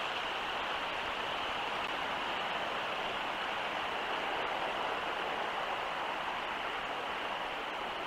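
Steady, even hiss of outdoor background noise, with no howling, siren or other distinct event.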